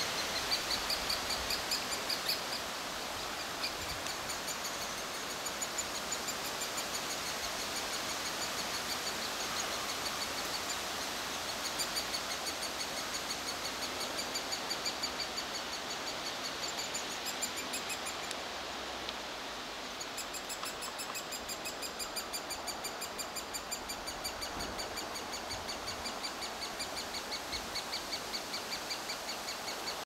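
Great spotted woodpecker nestlings begging inside the nest hole: a rapid, even chatter of short high calls, several a second, pausing briefly about two-thirds of the way through, over a steady background hiss.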